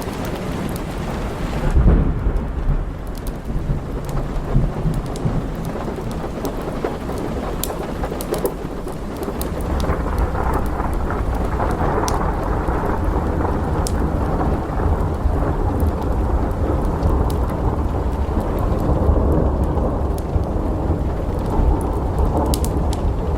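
Thunderstorm: steady rain with thunder, a clap about two seconds in and a long low rolling rumble from about ten seconds on. Scattered sharp crackles sound over the rain.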